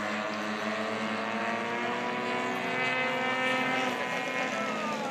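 Several radio-controlled model airplanes flying at once, their propellers and motors droning together at different pitches; one drops in pitch near the end.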